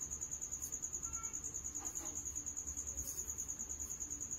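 A cricket chirping in a fast, even, high-pitched trill that does not change, with a faint click about two seconds in.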